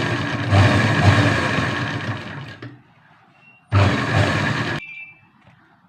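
Sewing machine stitching a fall onto a saree in two runs: a first run of about two and a half seconds that slows and dies away, then a short burst of about a second that stops abruptly.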